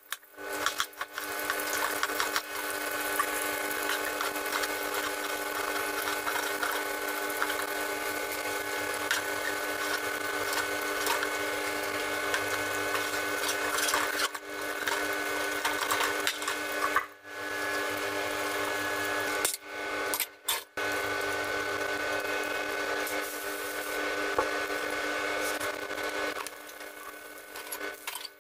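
A steady mechanical whirring hum with several fixed whining tones, like a small electric motor running, breaking off briefly a few times in the middle.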